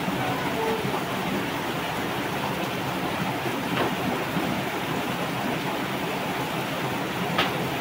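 Steady rushing of a shallow stream running over rocks, with a couple of faint clicks.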